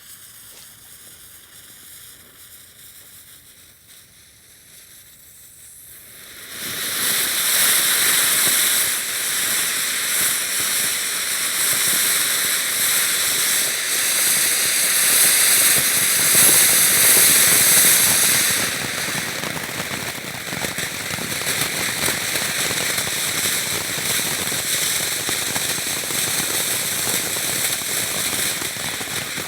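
A crackling firework fountain: a faint hiss for about the first six seconds, then the fountain bursts into a loud, dense spray of hissing crackles. The crackle eases a little about two-thirds of the way through but keeps going.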